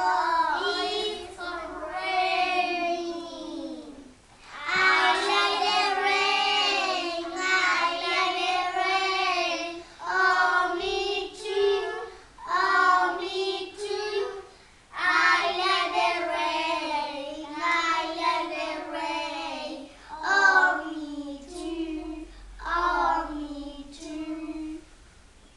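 Group of preschool children singing a song together without accompaniment, in short phrases with brief breaks between them.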